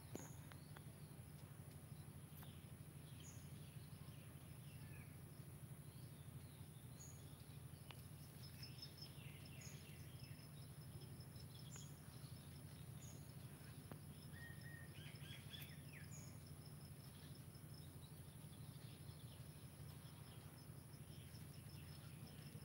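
Faint outdoor ambience: birds chirping now and then in short calls, with a small cluster of chirps around the middle, and an insect starting a steady pulsing trill about nine seconds in, over a low constant hum.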